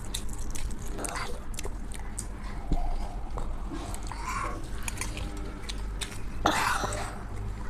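People chewing and eating a rice and fish meal: many small wet mouth clicks and smacks, with a couple of louder soft swells about four and six and a half seconds in.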